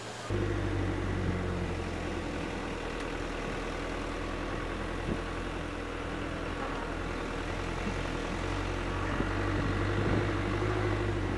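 Engine and road noise of a vehicle driving along a road, heard from on board: a steady low drone with a couple of faint bumps. It starts suddenly just after the beginning.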